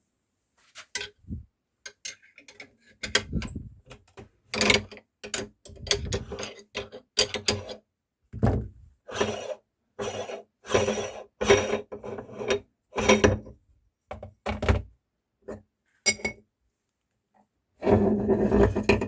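Meat grinder crushing dry toast rusks: a string of short crunching, grinding bursts with dull thumps, coming about once every second or less, with a longer, denser burst near the end.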